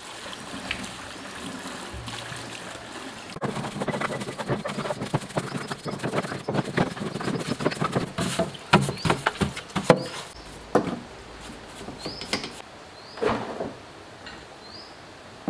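Liquid poured from a metal jerry can into a plastic tub over a diesel engine's crankcase. About three seconds in, a brush starts scrubbing the greasy engine parts in the liquid, making dense, rapid scraping and clatter. The scrubbing eases off about ten seconds in, leaving a few knocks as the parts are handled.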